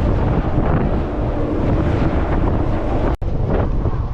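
Strong wind buffeting the microphone: a loud, steady rumbling noise, cut by a brief dropout about three seconds in.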